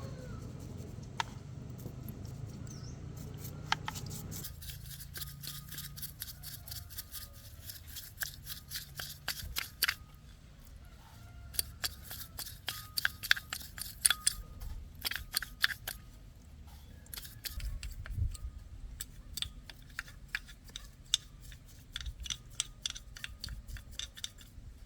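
Runs of rapid, sharp metallic clicks from hand tools being worked on metal parts, after a steady low hum that stops about four seconds in.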